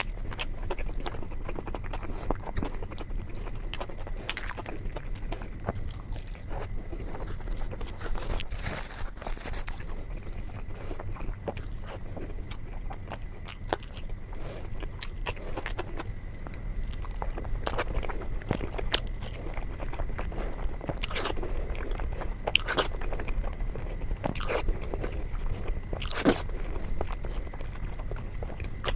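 Close-miked chewing and biting: wet mouth clicks and soft crunches at an irregular pace as a person eats flatbread with curry, over a steady low hum.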